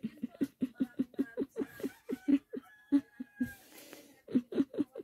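A person laughing in a long run of short, quick bursts, about four or five a second, breaking off briefly about three and a half seconds in.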